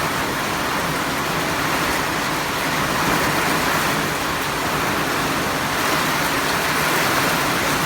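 Heavy rain falling in a steady, even downpour, with no thunderclap.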